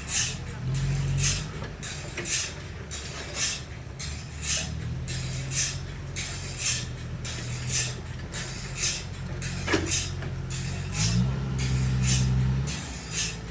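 Sawmill machinery running: a steady engine note with a rhythmic high rasp repeating about twice a second. The engine pitch rises briefly about eleven seconds in.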